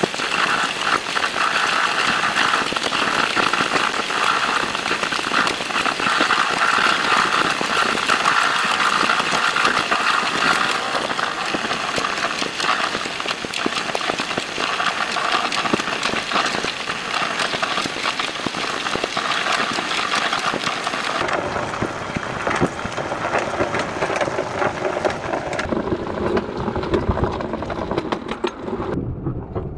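Sped-up ride noise of a small motorised trolley on narrow-gauge track: a dense, fast rattle of wheels and engine. The sound drops lower about two-thirds of the way through and again near the end.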